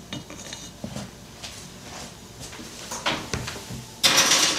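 Light knocks and clicks as a glass loaf pan is lifted and handled, then, about four seconds in, a short, loud scraping rush from the oven as the pan goes in on the rack with the door open.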